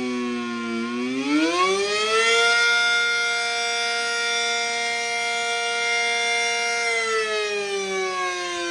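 ACA Super Banshee outdoor warning siren sounding a wail. Its tone dips low, climbs over about a second and a half to a steady high pitch held for roughly four and a half seconds, then begins to wind down near the end.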